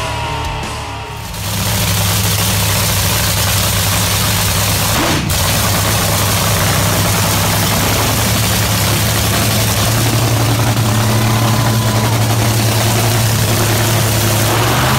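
Dragster's V8 engine idling steadily during a pit warm-up: a loud, even rumble that comes in about a second in, after a moment of rock music.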